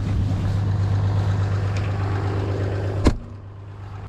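A steady low motor hum, with a single sharp knock about three seconds in, after which the sound drops to a lower level.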